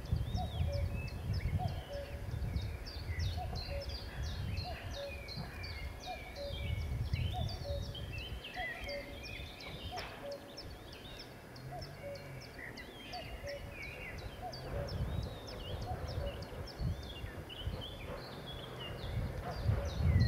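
Dense chorus of songbirds with many overlapping chirps and warbles, and a lower call repeating a little more than once a second. A low rumble comes and goes underneath.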